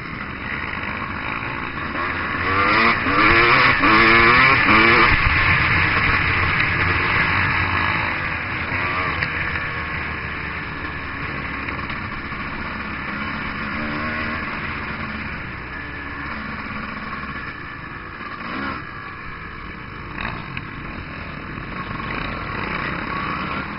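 Dirt bike engine heard from the rider's own bike, revving up and down several times about three to five seconds in, where it is loudest, then running on at a steadier, lower level.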